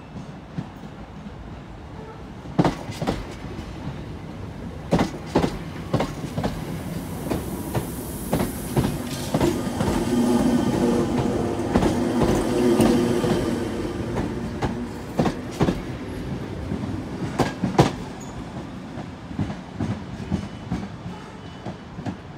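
Class 319 electric multiple unit running slowly past at close range, its wheels clacking over rail joints and pointwork, often in pairs. A motor hum swells as the train draws alongside about halfway through, then fades.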